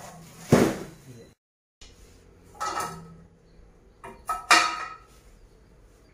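Handling knocks and clanks as a folding metal trolley frame and its parts are moved and set down on a tiled floor: a thump about half a second in, then a few sharp clanks with a short metallic ring, the loudest near the end.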